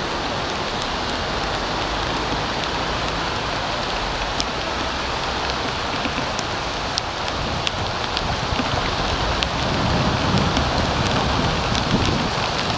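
Heavy rain pouring steadily onto a flooded street, with now and then a sharp tick of a drop hitting the camera.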